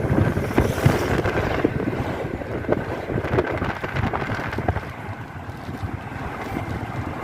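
Wind buffeting the microphone over the rumble of a moving vehicle, with frequent short knocks and jolts.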